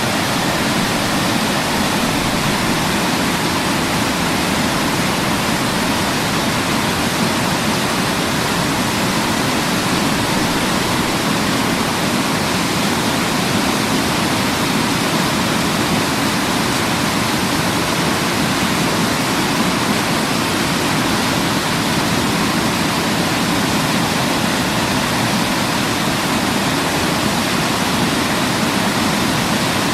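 Waterfall: water falling steadily, an even, unbroken rushing that does not change.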